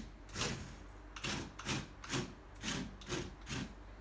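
Motorised Lego Technic motorcycle running, its plastic parts rubbing and knocking in a rough rhythm of about two scraping pulses a second.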